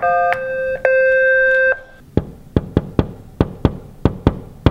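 Hospital ward door intercom sounding its electronic call tone: a steady pitched buzz in two parts, lasting under two seconds. Then a quick run of about ten sharp clicks.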